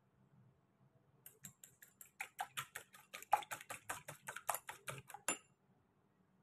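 Small wire whisk beating raw eggs in a ceramic bowl, its wires clicking rapidly against the bowl, about six strokes a second. The beating starts about a second in and stops about five seconds in.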